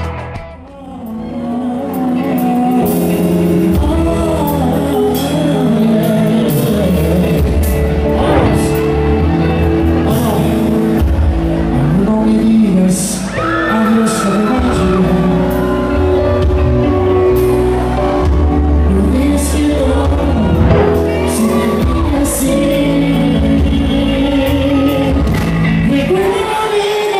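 Live band music: a male singer with electric guitars and a full band, in a large hall. The music dips briefly about a second in, then plays on steadily.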